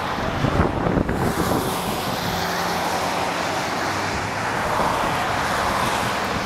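Steady jet noise from a Boeing 737-400's twin CFM56-3 turbofans at approach power as the airliner passes on final approach with its gear down, growing brighter about a second in. Wind buffets the microphone in the first second.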